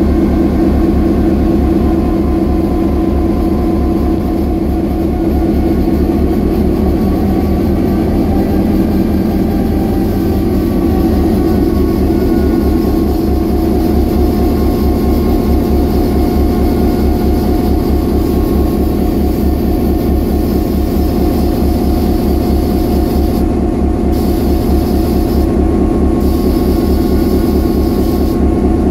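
EMD CF7 locomotive's 16-cylinder 567BC two-stroke diesel running steadily with a fast, even exhaust throb, warming up after a cold start.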